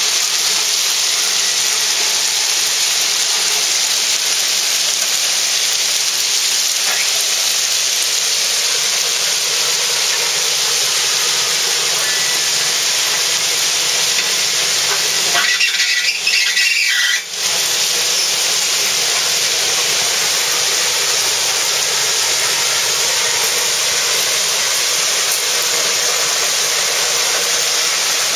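Rail ballast plow's steel blade scraping and pushing crushed-rock ballast along the track as the car moves, a steady loud rushing hiss of grinding stone. About halfway through it breaks into a brief rough, crackling patch with short dropouts.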